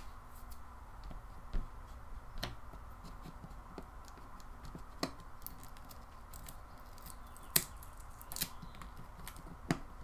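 A handful of small, irregularly spaced clicks and light scrapes of a precision screwdriver working screws inside an opened Nexus 7 tablet, over a faint steady hum.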